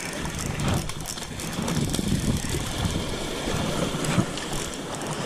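Wind rumbling on the microphone over small waves washing on a shell beach, with a few brief splashes as a hooked cownose ray thrashes in the shallow surf.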